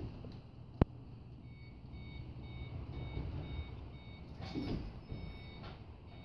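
A car's electronic warning chime beeping faintly and evenly, about two to three beeps a second, after a single sharp click about a second in. This is the ignition switched on before a cold start, with the engine not yet cranked.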